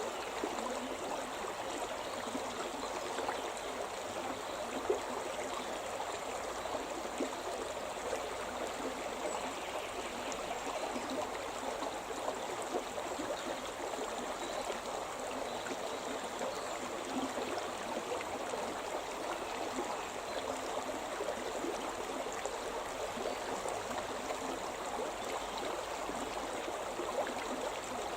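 Shimna River, a rocky upland stream, flowing and burbling over stones in a steady rush.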